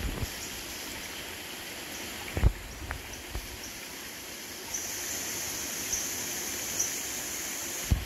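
Steady rush of flowing stream water along a rocky forest gorge, with a few dull thumps, the loudest about two and a half seconds in. From about five seconds in a high, steady buzz joins, swelling about once a second.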